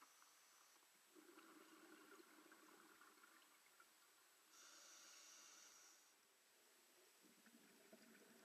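Faint scuba breathing underwater: a diver's exhaled bubbles burbling about a second in, a hiss of the regulator on the inhale midway, and the bubbles again near the end.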